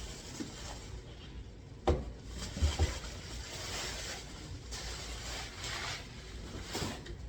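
Packaging rubbing and scraping in a series of swishes as a heavy Cricut cutting machine is worked out of its box, with a sharp knock about two seconds in and a couple more just before three seconds.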